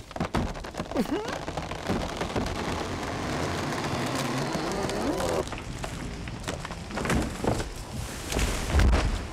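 Foley sound effects of ice cracking: a few sharp knocks, then a long spell of dense crackling and creaking as the cracks spread. Near the end come several more knocks and a heavy low thump.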